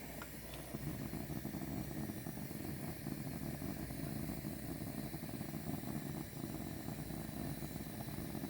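Cutting torch flame burning with a steady rumbling hiss, held on wax potting to melt it; it gets louder about a second in.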